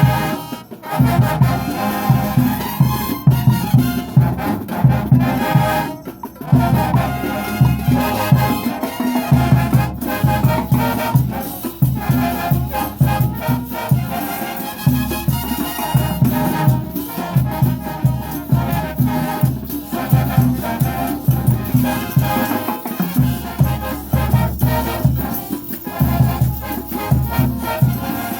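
Mexican banda music: a brass band playing with a steady beat and repeating low bass notes.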